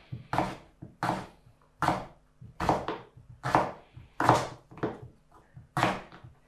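Kitchen knife slicing raw red potatoes into wedges on a wooden cutting board: each cut ends in a knock of the blade on the board, repeated about nine times at roughly one cut every three-quarters of a second.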